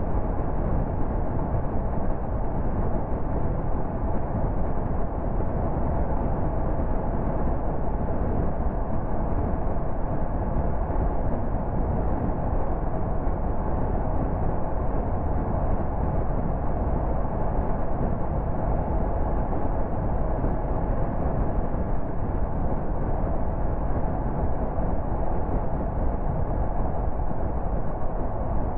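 Car driving at motorway speed: a steady, unchanging hum of road and engine noise.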